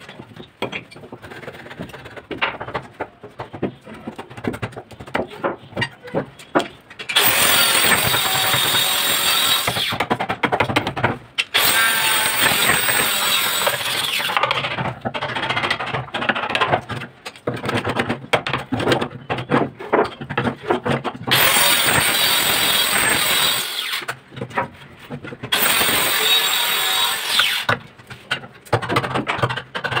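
Hammer striking a wood chisel, chopping and paring a lock mortise into the edge of a wooden door: repeated sharp knocks of steel on steel and wood. Several stretches of louder continuous noise lasting a few seconds each come between the knocks.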